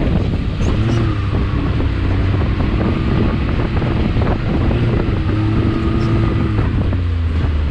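Can-Am Maverick X3 XRC Turbo's turbocharged three-cylinder engine running under load as the side-by-side drives over sand, its pitch rising and falling with the throttle. Wind rushes over the microphone throughout.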